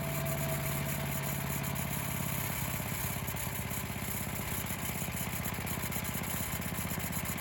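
The chipper shredder's Tecumseh 8 hp single-cylinder four-stroke engine running at a steady speed.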